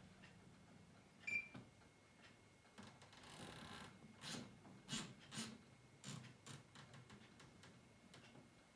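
Faint taps on a built-in electric wall oven's touch keypad, with a short electronic beep about a second in, as the oven is set to bake.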